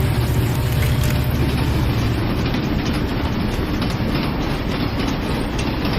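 Train running, a steady rumble with rhythmic wheel clatter.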